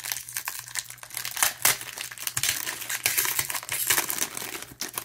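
Metallic foil trading-card pack crinkling as it is handled and pulled open by hand: an irregular run of crackles and rustles.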